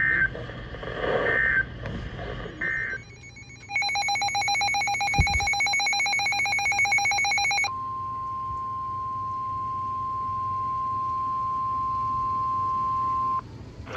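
Emergency Alert System tones: three short warbling data bursts (the end-of-message code), then a harsh pulsing electronic alarm for about four seconds, then the steady 1050 Hz NOAA Weather Radio alert tone for about six seconds, which cuts off just before the next warning.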